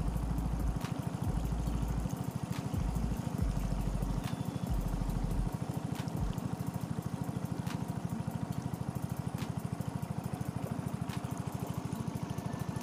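Small boat engine running steadily, pushing a wooden boat along the river, with a fast, even pulse.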